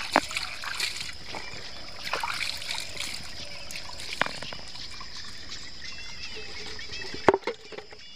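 Water trickling and splashing over stones in a shallow irrigation channel as hands set a woven bamboo fish trap into the flow, with a few sharp knocks, the loudest near the end.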